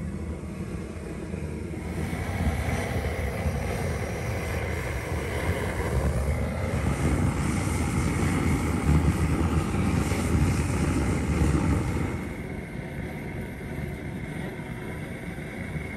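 A gas blowtorch burning with a steady rushing roar as it singes the hair off a bull's leg for khash. It swells a couple of seconds in and drops back about three quarters of the way through.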